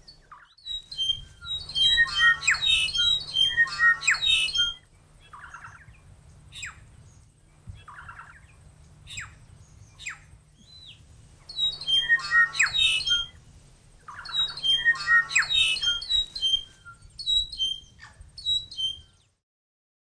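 Saddleback (tīeke) calling: two loud bouts of rapid, dense call notes about ten seconds apart, with scattered single calls between them.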